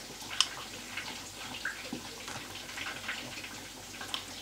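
Faint steady crackle of breaded chicken patties deep-frying in oil, with a few sharp clicks of a metal spoon against a ceramic bowl as guacamole is spooned out.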